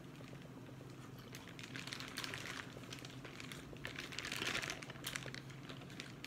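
Clear plastic seafood-boil bag crinkling as hands dig through the sauced food inside, in bouts that are loudest about four to five seconds in.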